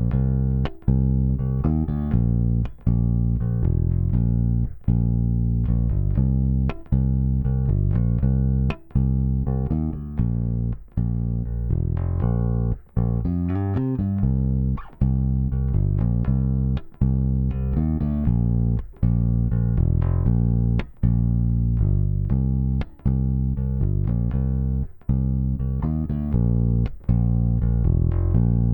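Electric bass guitar playing a repeating line of plucked notes, with a brief break in the sound about every two seconds.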